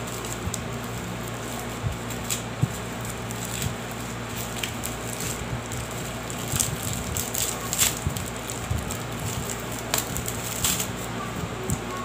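Scattered light clicks and crinkles of plastic packaging and fake nails being handled, over a steady low hum.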